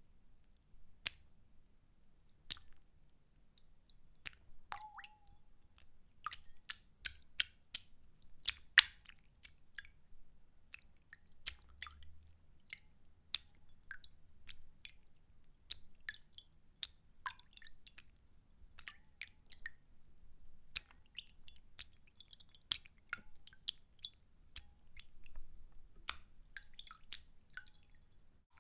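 Water splashing in short, sharp splashes and drips at irregular intervals, roughly one or two a second, coming thicker near the end.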